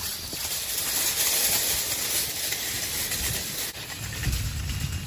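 Shopping cart rolling across a parking lot: a steady rattling hiss from its wheels on the pavement. About three and a half seconds in it gives way to a lower rumble with a faint steady hum.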